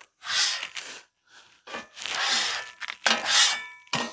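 Metal griddle scraper scraping across the steel top of a warm flat-top griddle, pushing off stuck-on grease and food residue in three strokes of about a second each.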